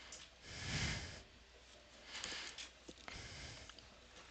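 Soft breaths of a man close to a headset microphone: two audible exhalations, about half a second in and about two seconds in, with a few faint clicks.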